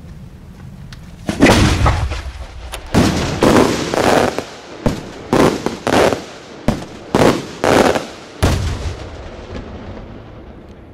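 Large cylinder fireworks shell going off as a multi-salute: a first heavy bang, then a rapid run of about a dozen loud salute reports over some six seconds, each with a ringing echo, dying away near the end.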